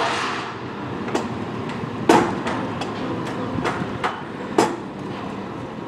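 Construction hammering: about eight sharp, irregular knocks of nailing into timber, the loudest about two seconds in, over a steady site background.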